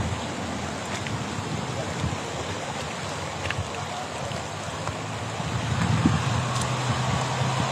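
Muddy rainwater runoff rushing along a shallow channel, a steady noisy wash with some wind on the microphone. About six seconds in, the steady low hum of a vehicle engine comes in under it.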